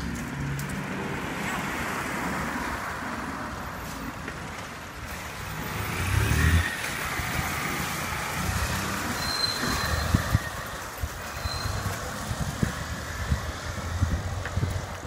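Street traffic heard from a moving bicycle: a car going past about six seconds in, the loudest moment, over a steady rushing noise of wind and road. Irregular low bumps in the second half.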